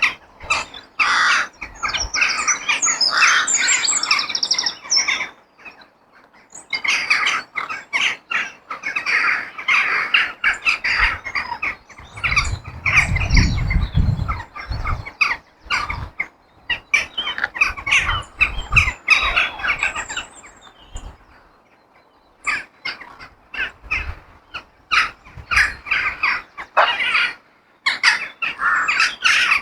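A flock of crows cawing and squawking in dense, overlapping bursts, broken by a few short lulls. A brief low rumble comes through about halfway.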